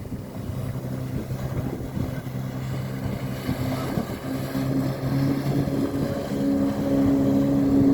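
Jet ski engine running steadily over water, getting louder toward the end, with wind buffeting the microphone.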